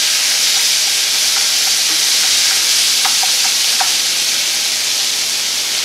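Diced marinated pig heart sizzling steadily in hot olive oil in a cast-iron skillet while it is stirred with a wooden spoon. A few light clicks come a little past the middle.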